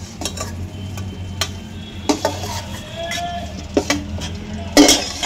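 Steel ladle scraping and clinking against a steel kadai as fried capsicum pieces are scooped out of hot oil, over the sizzle of the oil. There are several sharp knocks, the loudest near the end, and a steady low hum underneath.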